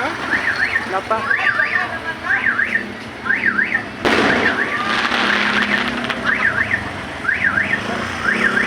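Car alarm sounding a repeated up-and-down warble, with a single loud firework bang about four seconds in, followed by a couple of seconds of crackle.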